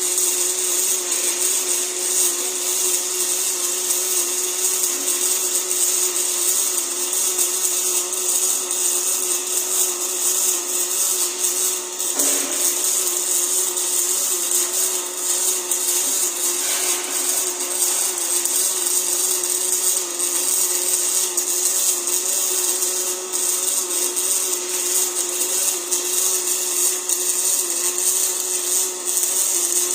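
Welding of a pipe elbow to a flange: a steady, continuous hiss with a constant hum underneath, running without a break apart from a brief dip about twelve seconds in.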